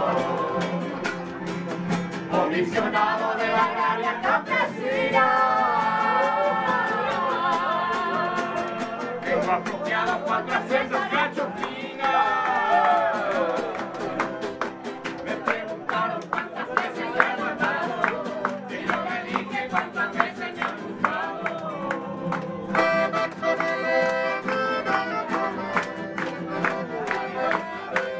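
Live folk music: acoustic guitars strumming a steady rhythm, with voices singing along and a violin playing the melody.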